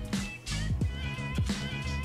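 Background music with a steady beat: a low thump about every two-thirds of a second under short, wavering high notes.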